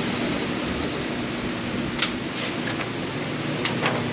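Steady hiss with a low hum from a ventilation system, with a couple of faint clicks about two seconds in.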